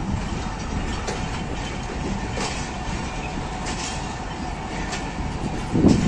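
Passenger coaches rolling slowly past on the track: a steady rumble with single wheel clicks over rail joints about every second and a bit. Near the end, a gust of wind buffets the microphone with a louder low rumble.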